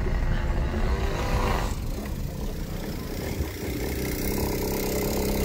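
Low vehicle rumble, with a rising sweep that cuts off abruptly about two seconds in. Then a small two-stroke motorized-bicycle engine runs steadily with a quick, even putter.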